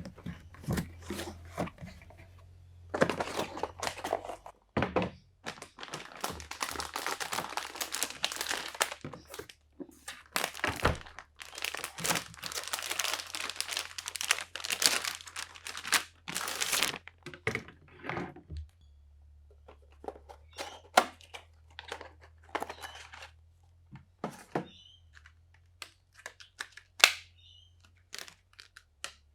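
Packaging being opened and handled: plastic crinkling and rustling with tearing, dense for about the first half, then giving way to scattered light clicks and thunks of parts being set down.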